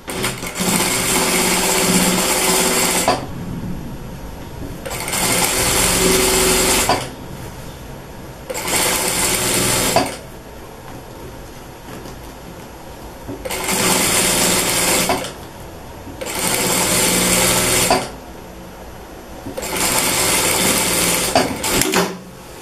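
Sewing machine stitching a straight seam in six short runs of one to three seconds each, stopping between runs; several runs end with a short click.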